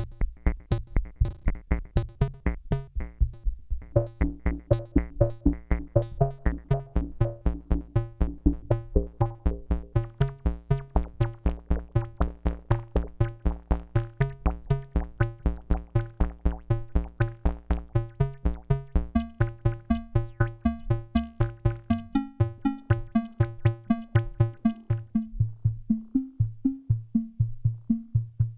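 Behringer Neutron analog synthesizer playing a fast sequenced pattern of short notes, about five a second. The tone grows brighter and buzzier through the middle as the filter opens, then turns duller again near the end.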